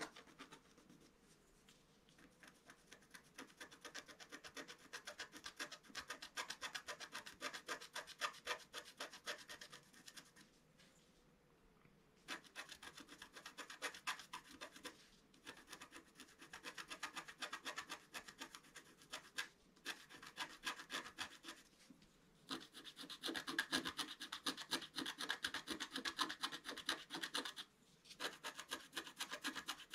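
Wooden stylus scratching the black coating off a scratch-art card in quick, rapid strokes, with a few short pauses, the longest about eleven seconds in. The scratching is busiest and loudest over the last several seconds.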